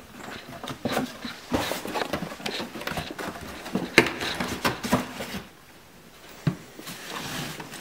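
Rustling and irregular knocking of boxes and bags of supplies being handled and moved, with a sharp knock about four seconds in and another single knock about six and a half seconds in.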